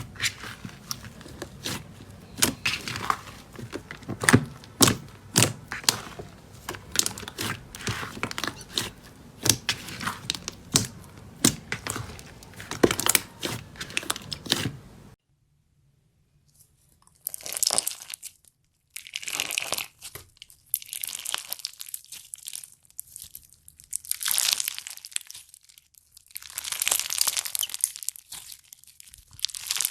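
Slime being squeezed and worked by hand: a dense run of sharp crackles and pops, then, after a brief silence about halfway through, longer crinkling, tearing swells.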